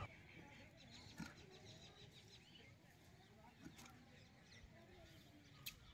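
Near silence: faint outdoor ambience with faint high chirps, likely distant birds, in the first second or so and a few soft clicks.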